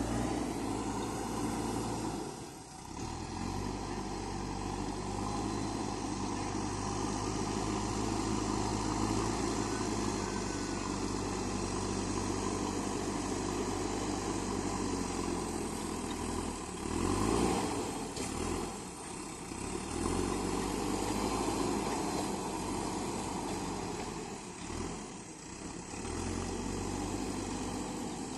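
JCB 3DX backhoe loader's diesel engine running steadily while working, dipping briefly a couple of times and swelling once about two-thirds of the way through.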